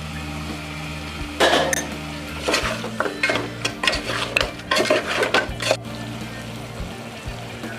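Metal spoon stirring mutton in a pressure cooker pot, scraping and clinking against the metal. A run of clatters starts about a second and a half in and stops near six seconds.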